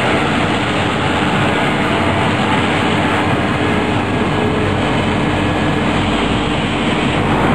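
Thunder Tiger Mini Titan SE electric RC helicopter running steadily, its rotor blades and motor giving a constant drone with a steady hum, while it hovers low and settles onto the grass with the rotor still turning.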